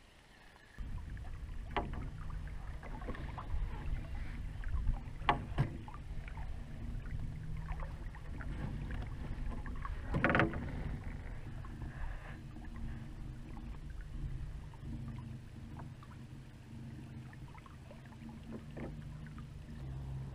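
Small fishing boat under way while trolling. A steady low hum starts suddenly about a second in, and a few sharp knocks sound on the boat, the loudest about halfway through.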